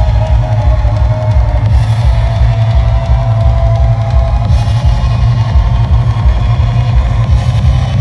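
Drum and bass music played loud over a venue sound system: a fast, dense drum beat over heavy, dominant bass.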